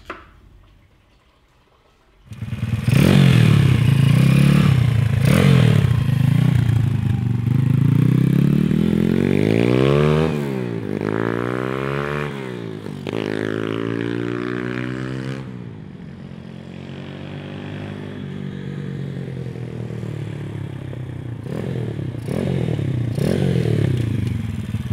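Honda CT70 mini bike with a YX 140cc single-cylinder engine and 26mm Mikuni carburetor, starting about two seconds in and revving up and down through the gears, its pitch climbing and falling with each run. It goes quieter in the middle and picks up again near the end. The riders feel a dead spot in the mid RPM range, which they put down to the fuel mixture.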